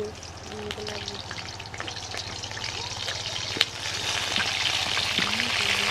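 Food sizzling and crackling in hot oil in a pan, growing louder, with one sharp click about three and a half seconds in.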